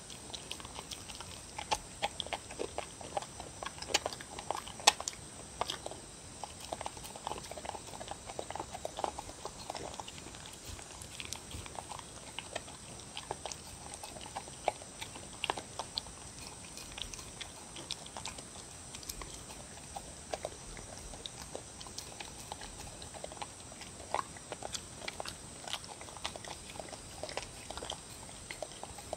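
Dog eating soup from a bowl: wet lapping and chewing, broken by many sharp, irregular clicks as it eats, busiest in the first third.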